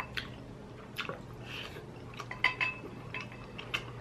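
A spoon stirring and scooping through stew in a heavy pot, knocking against the pot a few times with short clinks, one of them ringing briefly about two and a half seconds in. A steady low hum runs underneath.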